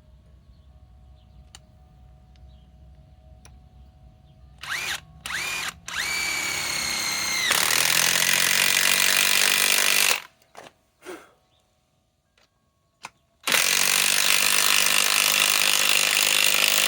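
DeWalt DCF891 cordless mid-torque impact wrench driving a lag screw into wood. It gives a couple of short trigger pulses, then the motor spins up with a rising whine and breaks into about two and a half seconds of steady hammering. After a pause and a few short blips, a second, longer run of hammering comes near the end.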